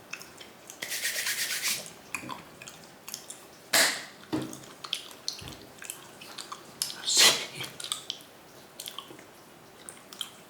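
Handling noise close to the microphone: a crinkly rustle about a second in, then scattered small clicks and two sharp knocks, near four and seven seconds.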